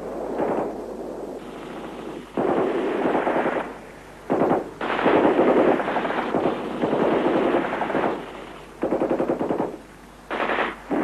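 Machine-gun fire in several long, rapid bursts with short pauses between them.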